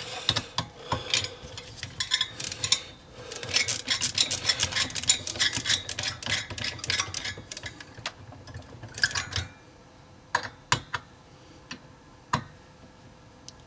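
Ratcheting screwdriver's pawl clicking rapidly as it works a heatsink screw, in quick runs of ticks. After about nine seconds it thins to a few scattered clicks.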